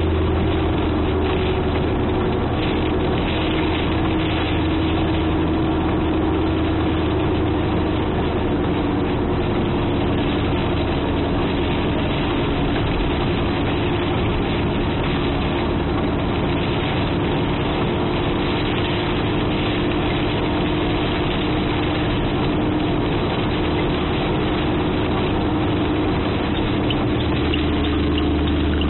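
Heavy rain pounding on a car's roof and windshield, heard from inside the cabin, over the steady hum of the car's idling engine in slow traffic.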